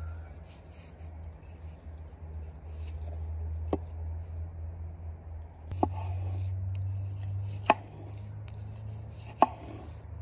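Knife cutting a tomato and then a red bell pepper on a wooden cutting board, with four sharp knocks of the blade on the board, spaced a couple of seconds apart. A steady low hum runs underneath.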